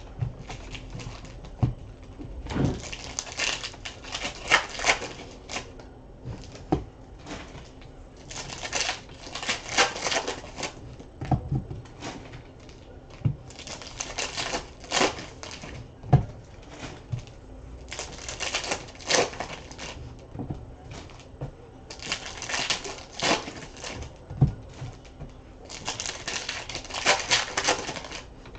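Plastic trading-card pack wrappers being torn open and crinkled, one pack after another, about every four seconds. Short knocks on the table come in between.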